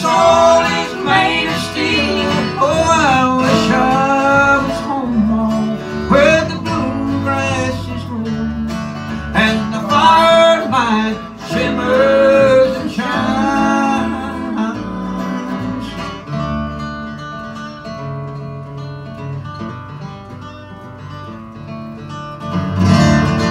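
Live acoustic bluegrass band playing: fiddle, resonator guitar, upright bass and acoustic guitar. The melody is strong through the first half, the playing softens for a few seconds, and it swells again near the end.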